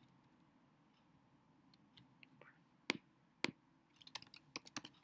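Faint computer clicks: a few single clicks spaced about a second apart, then a quick run of key and mouse clicks near the end, as text boxes on the screen are selected and edited.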